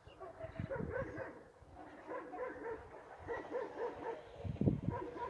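A dog barking over and over in short barks, about three a second, with low rumbling thumps underneath that are loudest near the end.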